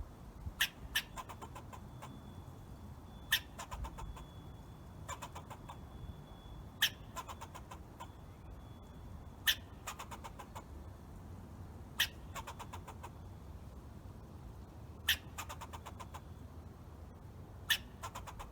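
Squirrel calling: a sharp chip followed by a quick rattling chatter, repeated about every three seconds.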